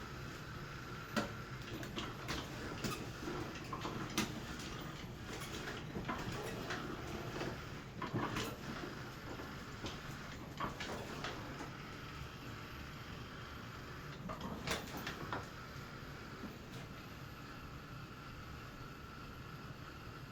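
Roomba-based robot's drive motors whirring steadily at slow speed, with a steady whine and irregular clicks and knocks as it moves and turns.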